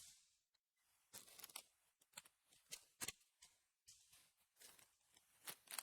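Near silence with a few faint, scattered clicks and rustles of hands handling objects.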